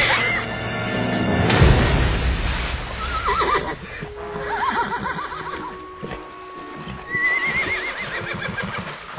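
A horse whinnying three times, each call a shaking, falling cry, the last one near the end the longest. A loud rush of splashing water comes about a second and a half in, before the first whinny.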